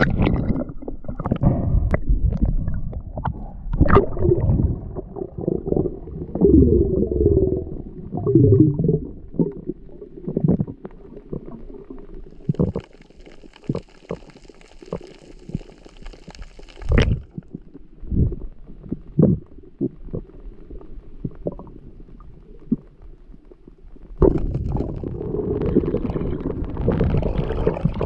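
Muffled underwater sound picked up by a camera held by a freediving spearfisher: low rumbling and swishing water movement with scattered sharp knocks and clicks. A faint high whine sounds for a few seconds in the middle and ends on a sharp click, and the rumbling grows loud again near the end.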